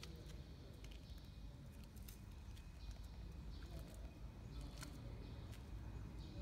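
Faint workshop background: a steady low rumble with scattered, irregular clicks and knocks.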